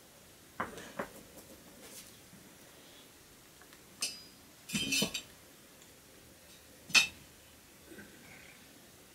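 A metal ladle clinking and knocking against a cooking pan while a soup is stirred. There are two knocks early on, a few clinks in the middle, and one louder ringing clink about seven seconds in.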